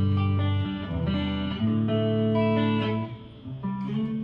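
Aria Pro II RS Wildcat electric guitar played clean on its neck pickup, picked fairly hard: a short phrase of ringing notes and chords, clear and Strat-like, with a brief gap about three seconds in.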